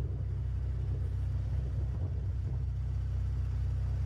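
Steady low rumble of a moving motor vehicle, engine and road noise, heard from a vehicle pacing alongside road cyclists.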